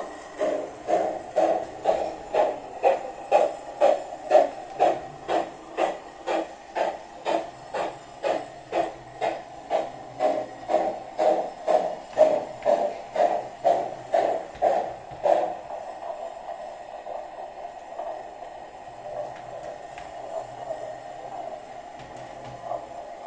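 Sound module of an LGB 20753 model steam locomotive playing its coasting sound through the loco's speaker: an even train of pulses, about two a second, that stops abruptly about 15 seconds in and leaves a steady hum.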